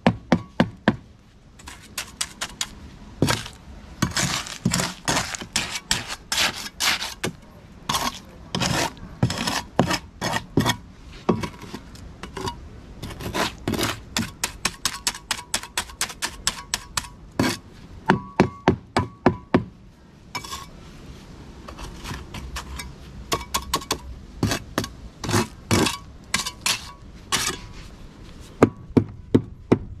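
Hand tools working on a freshly concreted beam and its wooden formwork: repeated sharp knocks, often in quick runs of four or five a second, some with a short metallic ring, with scraping between.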